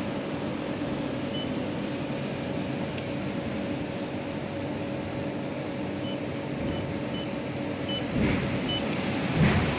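Quest card terminal's PIN pad on a ticket machine giving short, single-pitch beeps as the PIN keys are pressed: one beep early, then four in a row about two-thirds of a second apart. This plays over a steady background hum, with a couple of low thumps near the end.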